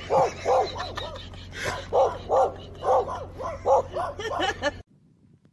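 A dog barking in a rapid run of sharp barks, about two or three a second, that cuts off abruptly near the end.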